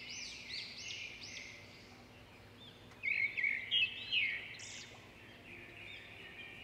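Small birds chirping, a run of short arched chirps repeating, with a louder flurry of calls about three seconds in.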